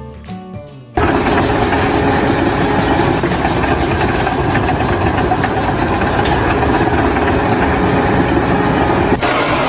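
A loud engine running steadily, starting abruptly about a second in, with a sudden change to similar engine noise near the end.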